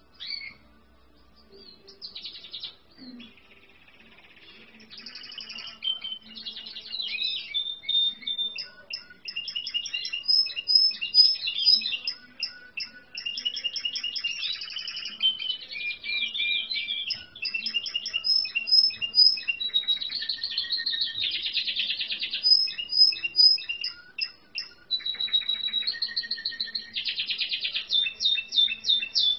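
Spanish Timbrado canary singing: a few scattered notes at first, then from about five seconds in a near-continuous song of rapid trills and repeated notes.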